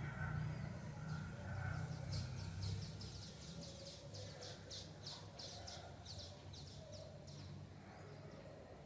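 A bird calls a quick series of high chirps, about four a second, for several seconds in the middle, over a low rumble that fades away.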